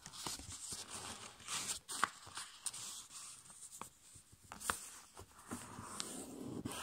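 Paper-airplane fold of A5 copy paper being creased by hand against a tabletop: irregular rustling and rubbing as fingertips press and smooth along the folds, with a few short sharp clicks.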